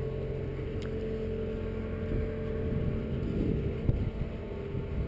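Steady low engine drone with a constant humming tone from a cable ferry's machinery as it hauls the ferry across. There is a single sharp knock about four seconds in.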